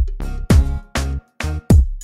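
Intro music with a punchy, steady drum beat and deep bass, about two hits a second.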